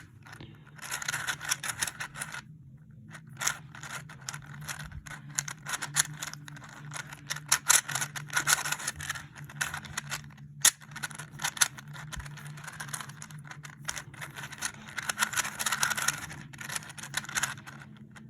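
A 3D-printed plastic 3x3 Rubik's Cube being turned rapidly in a speed solve: quick runs of plastic clicks and scraping as the layers snap round, with a brief pause about two and a half seconds in.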